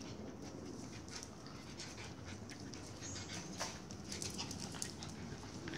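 Two small dogs at play, panting, with scattered light clicks of their claws on a tiled floor.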